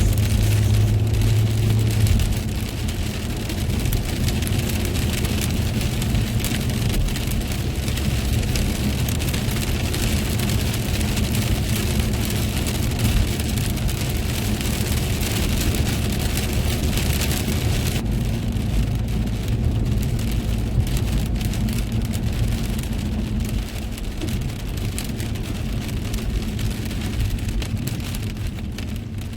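Heavy rain pattering on a moving car, heard from inside, over the steady low hum of the car running on a wet road. About two-thirds of the way through, the rain hiss thins and single drop ticks stand out.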